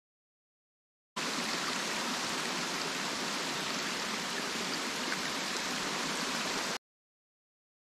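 Steady rush of running stream water that starts abruptly about a second in and cuts off suddenly near the end.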